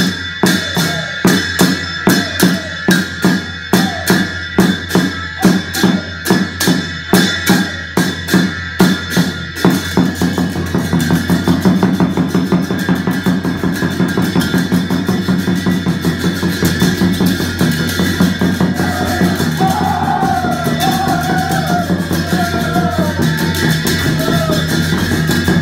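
Drum music for a folk dance: evenly spaced beats, about two to three a second, for the first ten seconds, then a faster, unbroken drumming rhythm. A wavering melody joins briefly past the middle.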